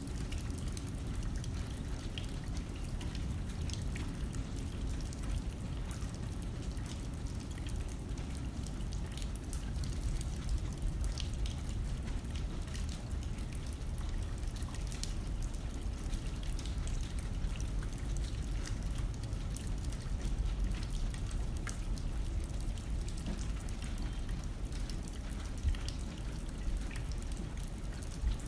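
Rain hitting a window, with scattered drops ticking on the glass over a steady low rush of wind.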